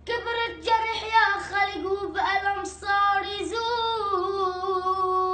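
A boy singing an Arabic song unaccompanied, his voice turning quickly up and down in pitch, with a short breath about three seconds in, then settling onto a long held note.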